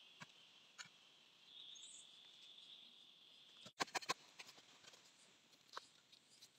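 Faint, steady insect drone with a few isolated soft clicks from digging in soil. The drone stops suddenly a little before four seconds in, followed by a quick run of sharp clicks and small crackles of dry soil being scraped and broken by hand.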